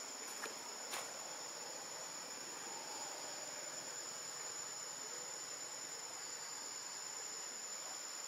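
Steady, high-pitched drone of a forest insect chorus, unbroken throughout, with two faint clicks about half a second and a second in.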